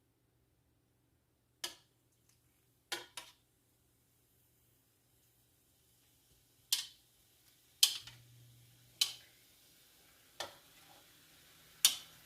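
Sharp knocks and clicks of a utensil against a pan as chicken pieces are laid in to sear, about seven in all and more frequent in the second half. A faint, steady sizzle of hot oil builds from about halfway through.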